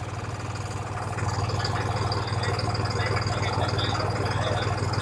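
Tractor diesel engine running steadily at a low, even speed.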